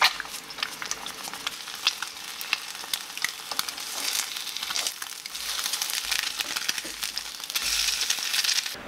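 Two eggs frying in oil in a nonstick pan, sizzling with many small crackles, while a utensil works in the pan breaking a yolk and turning the eggs. The sizzle grows louder about five seconds in and cuts off sharply just before the end.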